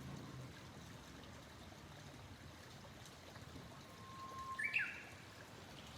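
A small stream trickling and running steadily. About four seconds in comes one short call of a lesser cuckoo (hototogisu), with a held lower note followed by quick higher notes that drop at the end.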